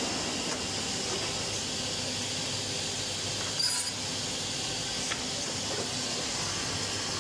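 Steady hiss and hum of an automatic double-end cut-off and drilling woodworking machine running. A short sharp burst of noise comes about three and a half seconds in, and a faint click comes about five seconds in.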